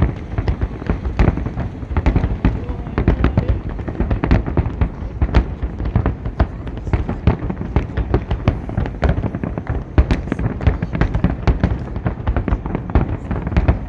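Fireworks salute going off: a dense, continuous barrage of overlapping booms and sharp cracks, several a second.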